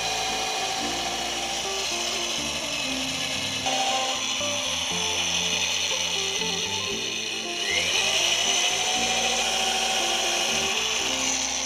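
Corded electric drill boring holes through the wooden side plank of a boat hull, the motor running steadily with a rise in pitch about eight seconds in.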